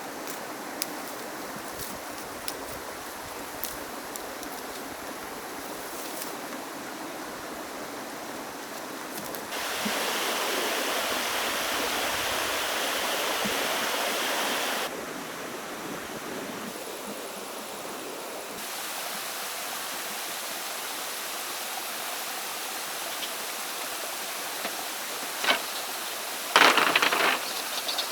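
Steady rushing of flowing water. It is louder for about five seconds in the middle, and a few sharp knocks come near the end.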